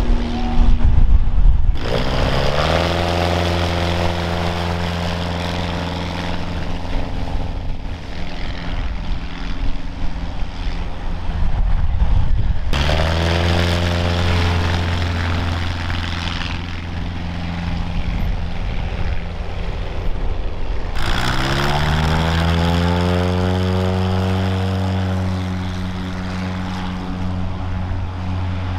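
Propeller-driven piston engines of STOL bush planes at full power on short takeoffs and low passes. Three times the engine note climbs sharply as the throttle opens and then holds steady, the sections changing abruptly from one aircraft to the next.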